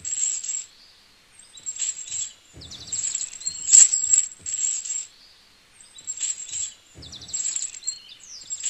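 A small steel chain jingling and clinking as it is handled and hooked onto the front of a toy tractor, in several short bursts.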